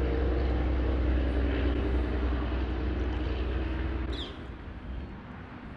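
A steady, low engine-like drone that dies down about four seconds in.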